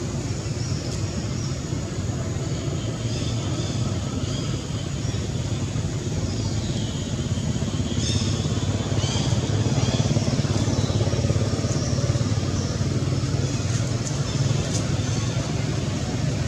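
Steady low motor rumble, growing slightly louder about halfway through, with faint high chirps over it.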